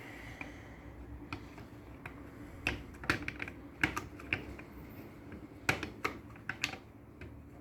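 Irregular small clicks and taps of a screwdriver and plastic parts as the screws of a Mastech MS8223A pen multimeter's plastic housing are undone and the case is opened.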